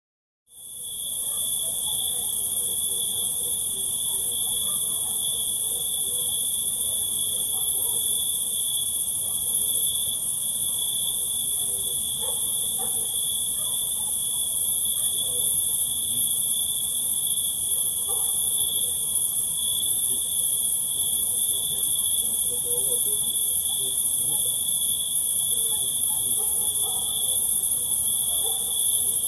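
Crickets stridulating in a continuous chorus: a steady high trill with a still higher, hiss-like shrilling above it, fading in just after the start.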